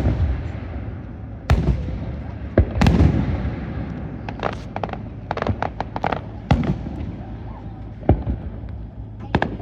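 Fireworks going off: sharp booms about a second and a half and three seconds in, a quick run of crackling pops in the middle, and a few more single bangs near the end.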